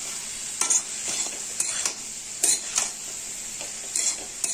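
Grated cauliflower frying with spices in mustard oil in a metal kadhai, sizzling with a steady hiss, while a metal spatula scrapes and turns it in irregular strokes roughly every half second.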